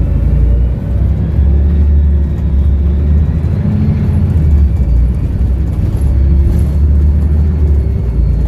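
Volvo B7RLE single-deck bus with its seven-litre six-cylinder diesel and Voith automatic gearbox, running under way: a deep, steady engine rumble with faint thin whines above it.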